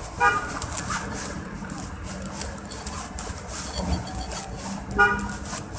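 Ladle scraping and rubbing over pizza dough as tomato sauce is spread in circular strokes, a series of short scratchy strokes. Two short tooting tones sound, one near the start and one near the end, over a low steady hum.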